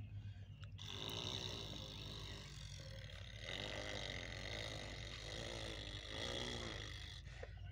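A person's voice making low, growling engine noises in repeated drawn-out stretches, imitating a tractor straining as it tows, over a steady low hum.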